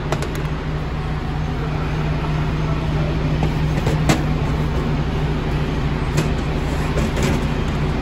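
Steady low mechanical hum of a workshop, with a few short metallic clicks and clinks, the sharpest about four seconds in, as a new piston and connecting rod are handled on a steel workbench.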